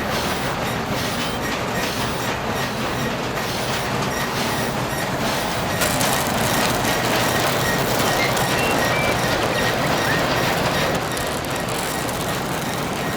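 Steady mechanical rattling and grinding noise, a little louder for about five seconds in the middle.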